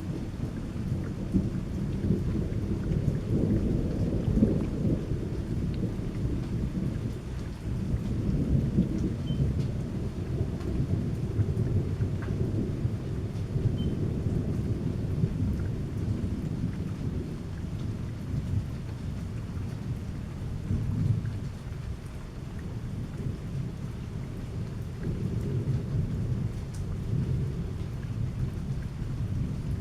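Long rolling thunder, a deep rumble that comes in suddenly at the start and keeps swelling and easing for the whole stretch, with steady rain falling underneath.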